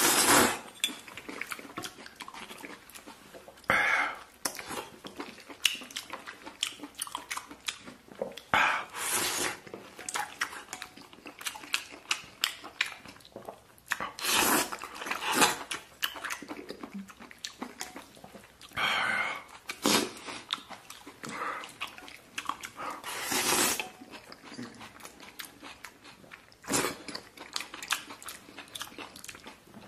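Close-miked eating: a person chewing oyster mushrooms from a tomato noodle soup, with many small wet mouth clicks and a louder burst of mouth noise every few seconds.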